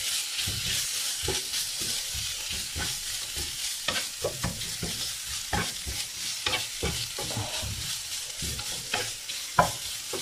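Sliced onion and grated coconut sizzling in a nonstick frying pan, with a wooden spatula scraping and tapping against the pan as it stirs. One sharper knock comes near the end.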